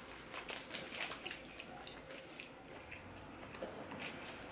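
Faint eating sounds: chewing French fries and a sandwich, with many small mouth clicks and smacks.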